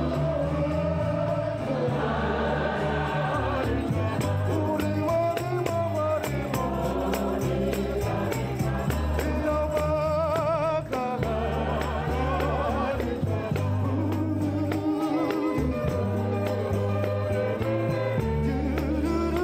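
A choir singing gospel music, with wavering voices over deep held bass notes and a steady beat.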